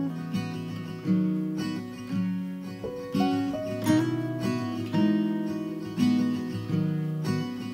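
Background music: acoustic guitar, with chords plucked about once a second, each ringing and fading.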